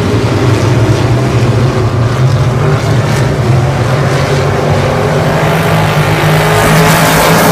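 A pack of hobby stock dirt-track race cars running at racing speed, their engines a loud, steady blended sound that swells about seven seconds in as the field comes closer.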